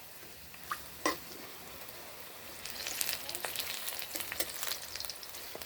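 Gram-flour coriander-leaf fritters frying in hot oil, a soft hiss with two light clicks about a second in, then a busier crackling sizzle of many small pops from about two and a half seconds in.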